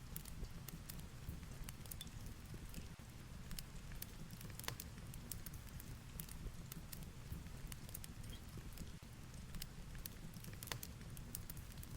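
Fireplace crackling with sharp, irregular pops over a steady low rumble of heavy rain and wind.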